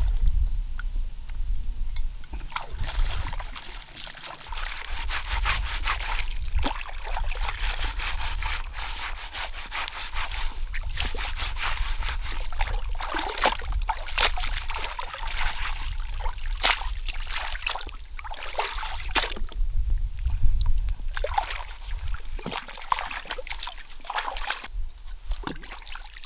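Lake water splashing and sloshing as a wooden slab is scrubbed with a wad of leaves in the shallows: irregular splashes and rubbing strokes that start a couple of seconds in and ease off near the end.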